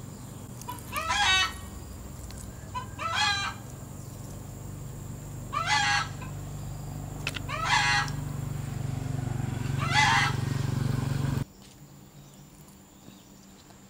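A chicken calling five times, one short call about every two seconds, over a steady low hum that cuts off suddenly near the end.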